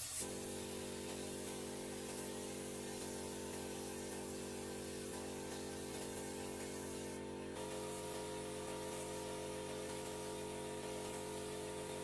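Air compressor motor running with a steady hum, supplying a paint spray gun. A short spray hiss cuts off right at the start, and the hum changes slightly about seven seconds in.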